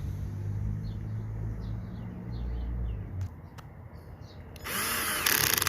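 Faint bird chirps in the background over a low steady hum, which stops about three seconds in. Near the end comes a loud rushing noise about a second long.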